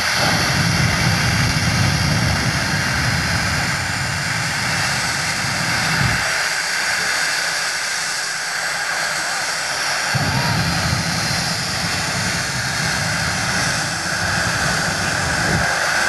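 Jet engine of a jet-powered show vehicle running loud with its afterburner flames lit: a continuous rushing blast. The deep rumble drops away for about four seconds in the middle and then comes back.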